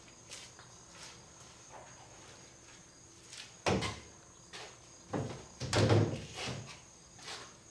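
Footsteps on a concrete floor, then a few knocks and clatters as a kayak paddle is set onto a PVC conduit rack, about four, five and six seconds in, the last the loudest.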